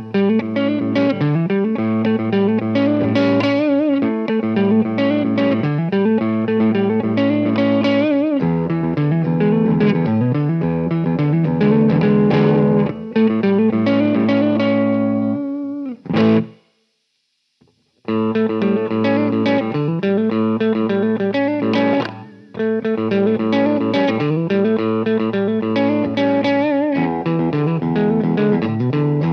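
Epiphone Flying V electric guitar played with a clean tone through a Marshall SC20H amp, repeating a riff in which a note slides up about every two seconds, some notes held with vibrato. The playing stops for about two seconds of silence roughly halfway through, then the riff resumes.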